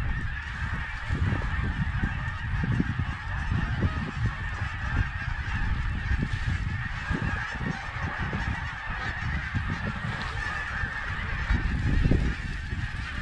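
A huge flock of Canada and snow geese calling overhead: a dense, unbroken chorus of honks with no single bird standing out. Wind gusts rumble on the microphone underneath.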